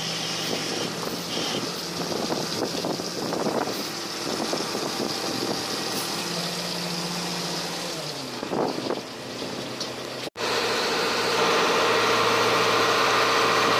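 Small fishing boat's engine running steadily, with irregular clatter and splashing as a king crab pot is hauled aboard over the rail. About ten seconds in the sound cuts out briefly and the engine comes back louder and steadier.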